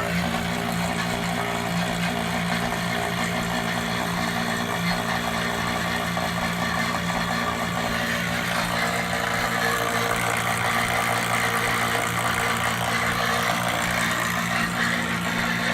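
Refrigeration vacuum pump running steadily, evacuating the refrigerator's sealed system after the evaporator coil and filter drier were replaced. A constant motor hum with a steady low tone.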